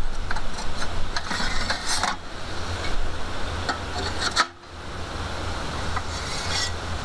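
Steel parts of an Anevay Frontier portable wood-burning stove being fitted together, with light metal clinks and scraping over a steady low rumble.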